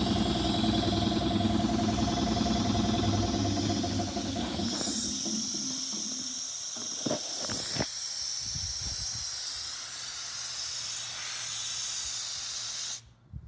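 Compressed air hissing steadily from a vehicle's air-tank system over a running engine; the engine dies away about halfway through, two sharp knocks follow, and the hiss grows louder, then cuts off suddenly near the end.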